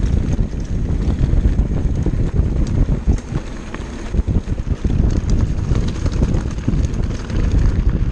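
Wind buffeting the microphone while a hardtail mountain bike rolls fast over a rocky dirt trail, its tyres crunching and the frame and parts rattling with many small knocks. It dips quieter briefly about three seconds in.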